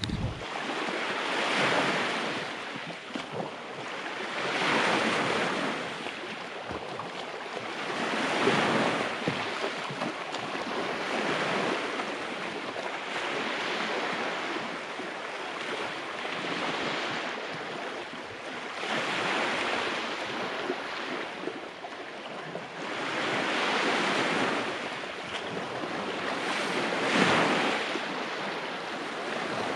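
Small sea waves washing onto a fine-pebble beach: a rushing wash that swells and draws back every three to four seconds.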